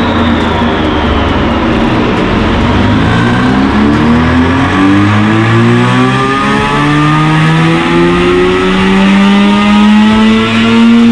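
Mazda RX-8's 13B-MSP Renesis twin-rotor rotary engine under load on a chassis dyno during a baseline pull on the stock tune. Its pitch climbs steadily from about three seconds in and it gets louder toward the end.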